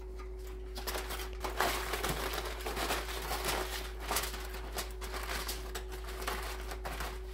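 Aluminium foil crinkling as gloved hands press and crimp the foil cover down over a baking pan, in quick irregular rustles starting about a second in. A faint steady hum runs underneath.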